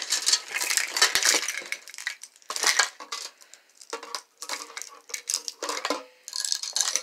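Hard Christmas decorations clattering and clinking as they are rummaged through in a cardboard box, with a string of large bulb-shaped Christmas lights rattling together as it is lifted out. The rattles come in irregular bursts, busiest at the start and again about three seconds in.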